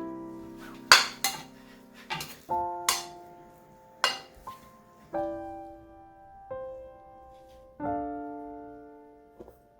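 Background piano music, slow notes and chords. In the first four seconds or so, about six sharp clinks and knocks of kitchen utensils against dishes.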